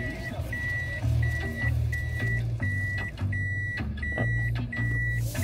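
Toyota Vitz's reverse-gear warning buzzer beeping inside the cabin: an even, high beep about one and a half times a second, each beep about half a second long, over a low hum. It sounds because the car is in reverse gear.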